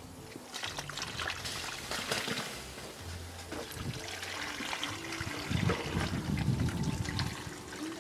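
Water poured from a plastic bucket into a large metal pot packed with corn cobs, splashing and trickling, heavier for a stretch about five and a half seconds in.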